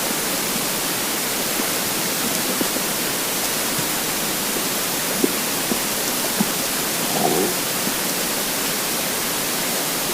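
Empty human stomach gurgling with hunger, a few short squeaky gurgles past the middle and one longer bubbling gurgle near the three-quarter mark, all under a steady, loud hiss.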